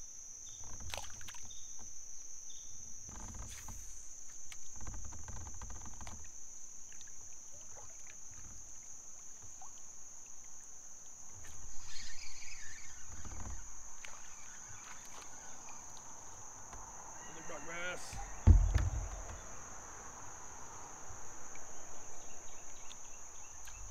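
Insects buzzing steadily at a high pitch, with scattered low knocks and thumps from a plastic kayak being moved about in and handled. The loudest thump comes about eighteen seconds in.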